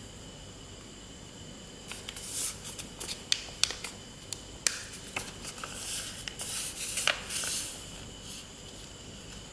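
Sheet of paper being handled and folded by hand: irregular crinkling rustles and sharp crackles as it is creased, starting about two seconds in and dying away near the end.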